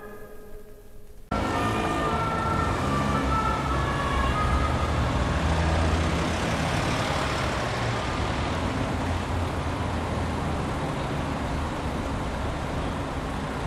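City street traffic: a steady din of passing vehicles that cuts in suddenly about a second in.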